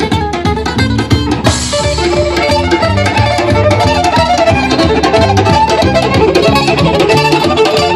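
Live band playing a gypsy-fusion tune: a violin melody over rhythmically plucked acoustic guitar and a steady bass line. A bright crash about a second and a half in marks a fuller section.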